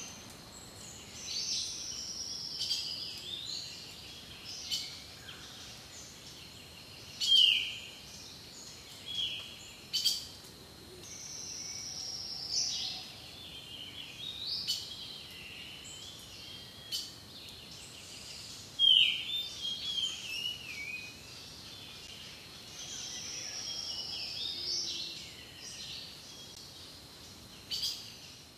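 Several birds calling over a low background hiss. A short, loud call that slides sharply downward comes back every several seconds, mixed with longer high calls that slide slowly down and scattered short chirps.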